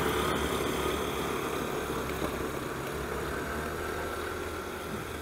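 A steady engine hum over outdoor background noise, slowly growing fainter.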